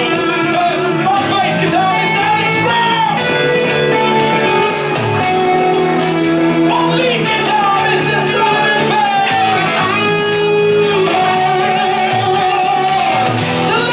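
Live rock covers band playing loud amplified music: electric guitars and a backing rhythm, with a singer's voice on top.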